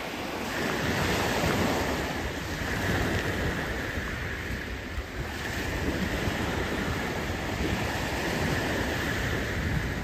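Small waves breaking and washing up a pebble beach, the rush swelling and easing every few seconds, with wind buffeting the microphone.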